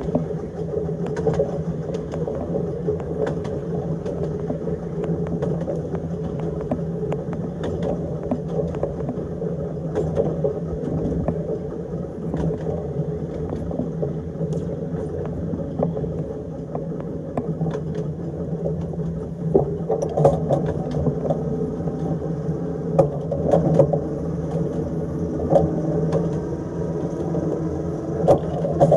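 Electric tram running along its narrow-gauge track: a steady low hum from the motors under a constant rumble, with frequent short clicks and clatters from the wheels on the rails. The knocks grow louder and closer together from about twenty seconds in.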